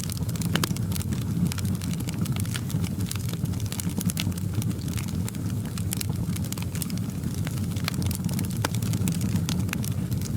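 Wood fire crackling in a fireplace: a steady low rumble of flame with frequent, irregular sharp snaps and pops.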